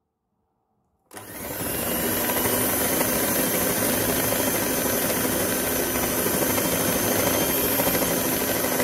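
Electric mixer fitted with a dough hook switched on about a second in, its motor running steadily with a high whine as it mixes flour, margarine and water into bread dough.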